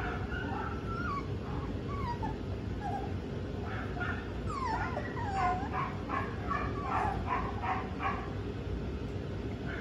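Five-week-old puppies whining and yipping: a few short falling whines at first, then from about four seconds in a quick run of high yips, several a second.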